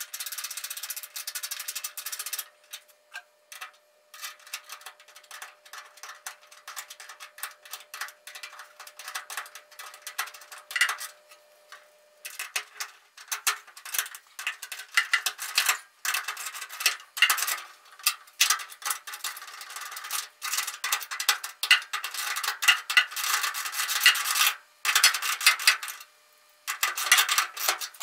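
Hand wrench working the bolts of a Triumph Spitfire bonnet bracket: rapid clicking and scraping in repeated short bursts with brief pauses, as the bracket is tightened while the bonnet is pushed into line.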